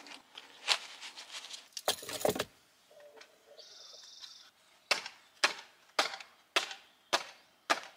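A pair of sneakers clapped together, six sharp smacks about half a second apart in the second half, after some rustling and handling.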